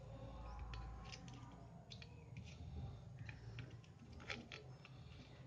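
Faint, scattered clicks and scratches of a soldering iron tip and an old toothbrush working against a circuit board while desoldering, over a low steady hum. There is a sharper click a little past four seconds in.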